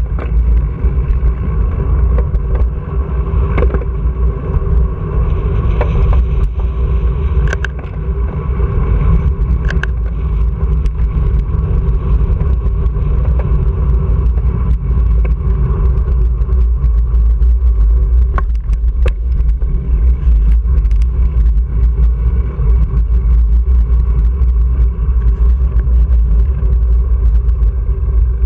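Steady wind rumble on a handlebar-mounted GoPro's microphone while riding a road bike, with scattered short clicks and knocks from the bike over the road surface.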